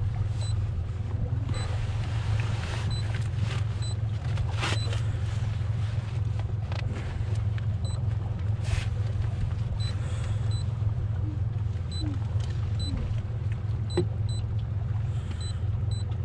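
A boat engine running steadily as a low, even drone, with a few light knocks scattered through it.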